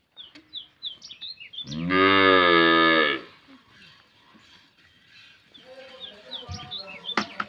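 A cow moos once, a long low call lasting about a second and a half, starting about two seconds in.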